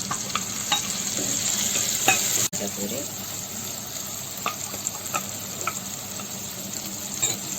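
Chopped tomatoes sizzling in hot oil in a pan while being stirred, with a spoon clicking and scraping against the pan every so often.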